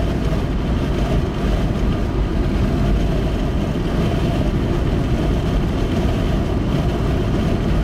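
Wind buffeting the microphone: a loud, steady rumbling rush with no distinct tones, heaviest in the low end.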